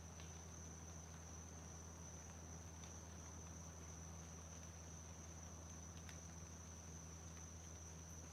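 Faint, steady high-pitched trill of crickets over a low, even hum, with a few faint ticks, one about three seconds in and a sharper one about six seconds in.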